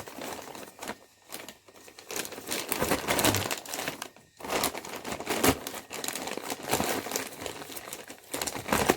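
Irregular crinkling and rustling of handling noise, with a sharp knock about five and a half seconds in.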